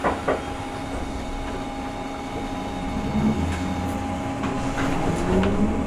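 Gakunan Railway 7000-series electric railcar pulling away from a stop: the traction motors' whine rises in pitch from about three seconds in over a steady running hum. A sharp click at the start and a few more clicks as the wheels begin to roll.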